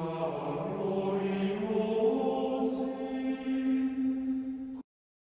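Intro music of slow, sustained choral chant in long held notes, stepping up in pitch about two seconds in and cutting off suddenly near the end.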